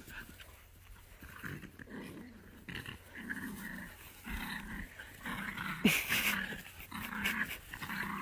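Dogs growling in play, a string of short growls that start about a second and a half in and grow louder, as a small dog and a bigger retriever tussle face to face.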